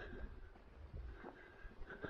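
Faint low rumble of wind on the microphone, with soft scattered crunches of footsteps on gravel and a faint thin whistle that comes and goes.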